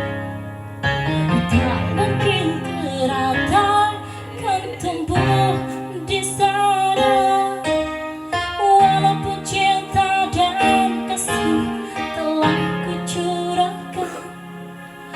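A woman singing a song over instrumental accompaniment with guitar.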